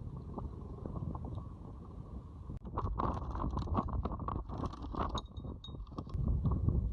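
Low rumbling wind-and-motion noise aboard a sailboat. From about two and a half seconds in, a quick run of clicks and knocks joins it.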